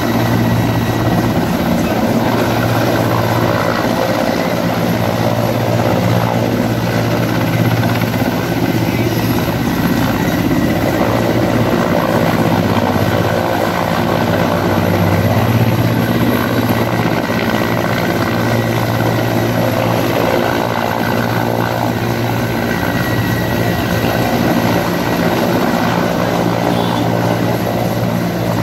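Mi-17-type twin-turbine military helicopter hovering low during a winch rescue: a steady, loud rotor and turbine drone that never lets up.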